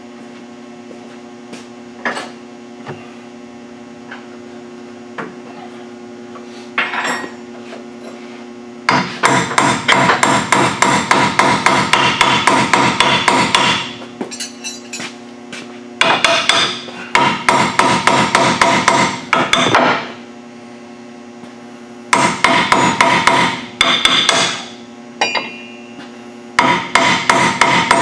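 Impact wrench hammering in four bursts of several seconds each, tightening the upper control arm bolts.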